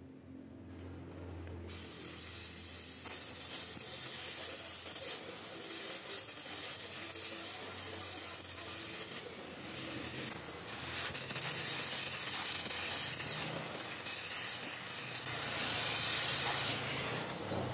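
Gas welding torch flame hissing steadily while it melts aluminium filler onto a cracked aluminium motorcycle crankcase. The hiss comes in about two seconds in and grows louder in the second half.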